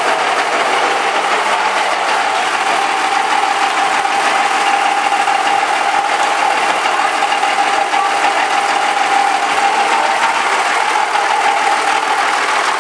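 Machinery running steadily inside a boat's cabin below deck: a constant mechanical noise with a steady whine that does not change.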